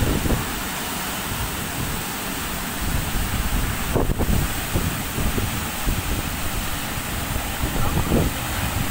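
Steady rushing roar of the Curug Cimarinjung waterfall plunging into its pool, with wind buffeting the microphone in gusts.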